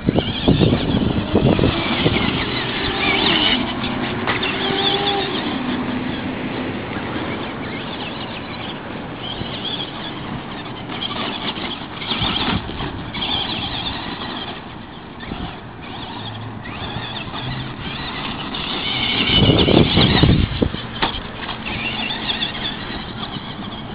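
Traxxas Monster Mutt RC monster truck's brushed electric motor whining through throttle changes, with its tyres crunching over gravel. It swells loudest about three-quarters of the way through, then eases off.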